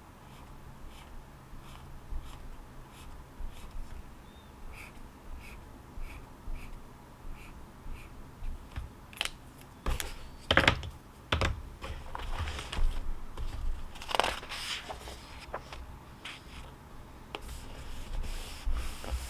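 Study-desk handling sounds: a run of light, irregular taps for the first half, then several louder rubbing and scratching sounds from about nine seconds in.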